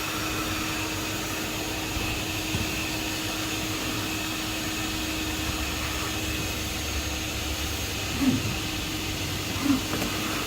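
A van running, a steady low rumble with an even hum.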